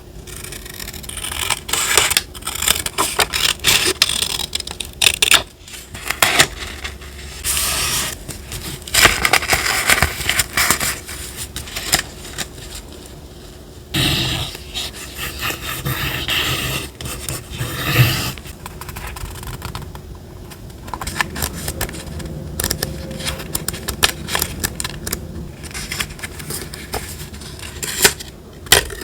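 Close-up paper handling for a collage journal: irregular rustling, scraping and crackling of paper and stickers, coming in clusters with quieter gaps between.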